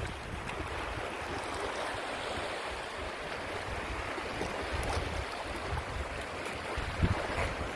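Small lake waves washing and lapping along the shore, with wind buffeting the microphone in uneven low gusts, strongest near the end.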